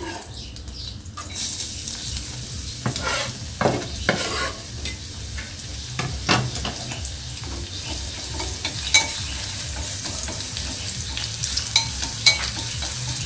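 A pan of cá chốt catfish braising in pepper sauce (kho tiêu), sizzling steadily from about a second in. A utensil stirring the fish scrapes and clinks against the pan now and then.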